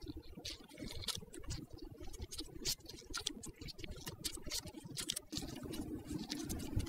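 Faint, irregular small clicks and scratches as gloved hands fit a new aluminium lever blade onto a hydraulic disc brake lever body, working it onto the pivot.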